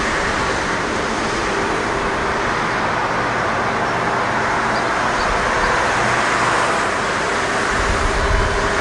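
Steady hiss and rumble of a rail maintenance vehicle running away down the line in the distance, with a deeper rumble swelling briefly near the end.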